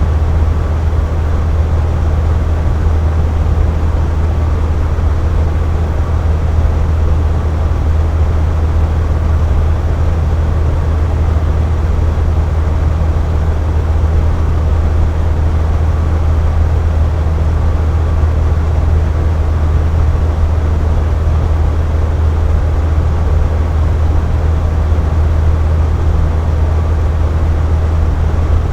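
Box fan running steadily: a constant rush of air over a strong low hum, with no change in speed.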